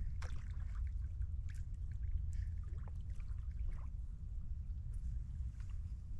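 Small splashes and trickling water around a kayak on the water, over a steady low rumble.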